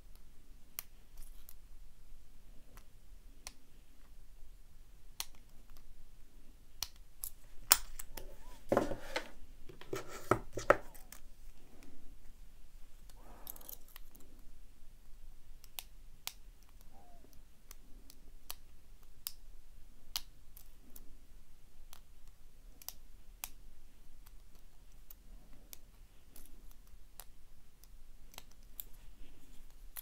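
Light, irregular metallic clicking of a lock pick and tension tool working the pin stack of an American Lock 1100 series padlock. A louder burst of metal clatter comes about nine to eleven seconds in, as padlocks are handled: an opened one joins the pile and another is picked up.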